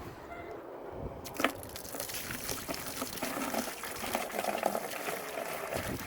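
Water pouring into a heated poultry waterer as it is filled. It starts about a second in with a knock, then runs on as a steady splashing rush.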